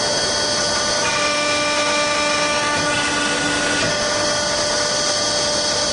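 PV-100 vertical hydraulic press running, its hydraulic pump giving a steady whine over machine noise. The tones in the whine change about a second in and again near four seconds.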